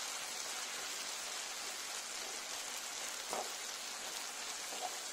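Shrimp, tomato and green pepper sauce sizzling in a frying pan with a steady hiss, and a couple of faint knocks from the stirring utensil against the pan in the second half.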